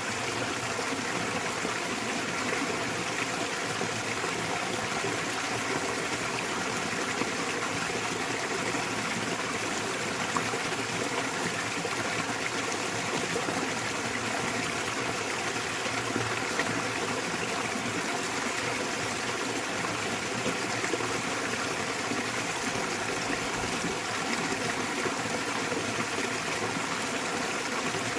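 A small waterfall splashing into a mountain stream, a steady rushing and splashing of water.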